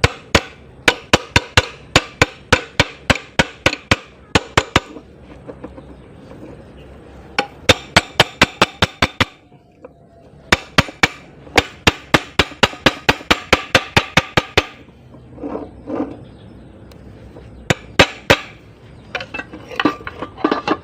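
Hammer striking metal in quick runs of about four blows a second. There are three long runs with short pauses between them, then a few scattered blows near the end.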